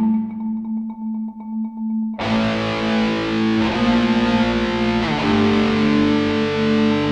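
Marimba played with four mallets in fast repeated notes, together with a recorded electric guitar track. The texture is thin for the first two seconds, then the full accompaniment comes in suddenly and the music grows much denser.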